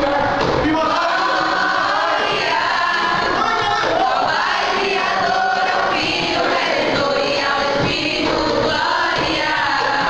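A group of voices singing or chanting together, many overlapping at once, at a steady loud level.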